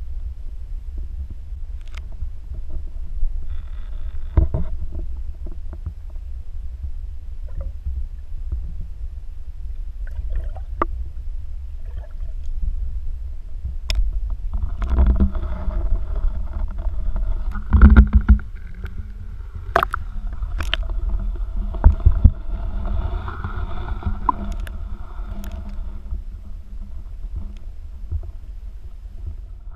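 Water rumbling and gurgling around a submerged GoPro in its waterproof housing, with scattered knocks against the case. From about halfway a steady hum of several pitches comes in and fades near the end, and two loud thumps stand out partway through.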